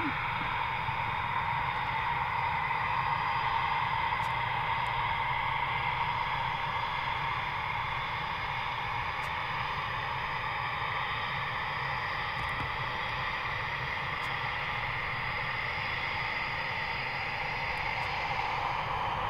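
Eurofighter Typhoon jet engines (Eurojet EJ200 turbofans) running steadily at taxi power as the fighters line up on the runway: a constant whine over a low rumble.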